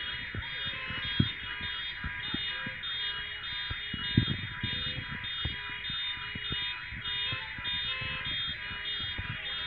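Several electronic car alarms sounding together in a steady, repeating pattern, with a couple of dull thumps about a second in and about four seconds in.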